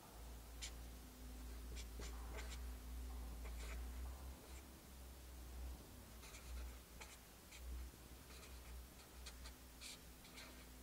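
Felt-tip marker writing on a sheet of paper: a faint run of short, separate pen strokes, over a steady low hum.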